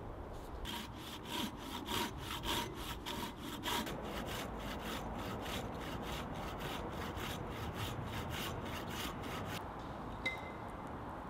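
Hand saw cutting through a wooden log on a sawhorse, quick regular strokes about three a second that stop a little before the end. A single short ringing ping follows.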